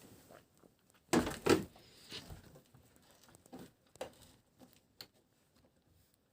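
Irregular knocks, taps and rustling of things being handled, with a short cluster of louder knocks about a second in.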